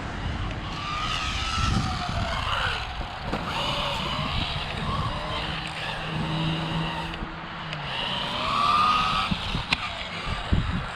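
Rlaarlo AMX12 RC buggy's electric motor whining, its pitch rising and falling repeatedly as it speeds up and slows down, over a rough low rumble, with a sharp click near the end.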